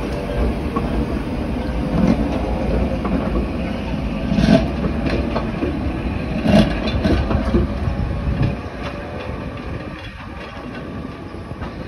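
Vintage tram and its trailer rolling past on street track, the wheels giving a few sharp knocks on the rails. The sound grows quieter after about eight and a half seconds as the tram moves away.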